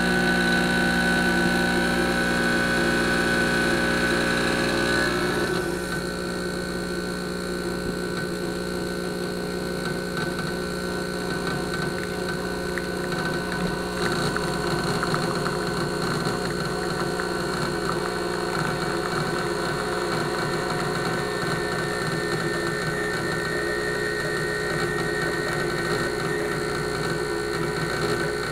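Espresso machine pump running as a shot is pulled, a steady hum made of several tones. About five seconds in it drops a little in level and its tone changes, then it holds steady.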